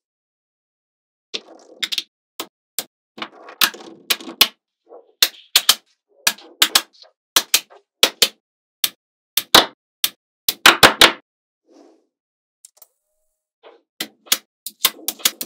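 Small magnetic balls snapping together: a run of sharp, irregular clicks with quieter handling noise between them, and a quick flurry of clicks about ten to eleven seconds in.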